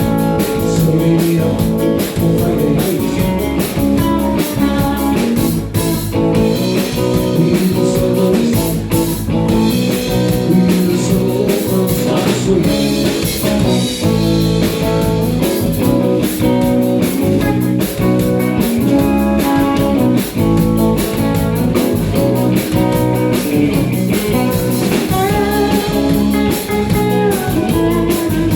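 Live country band playing, with guitar and drum kit, steady and loud.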